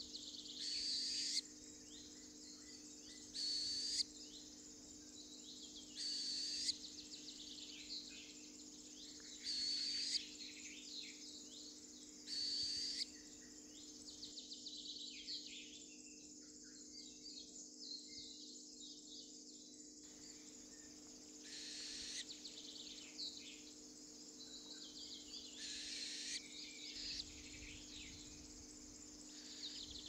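Northern hawk-owl fledgling giving its harsh, hissing begging call, a rasp under a second long repeated every few seconds, with a pause in the middle. Small songbirds chirp faintly between the rasps.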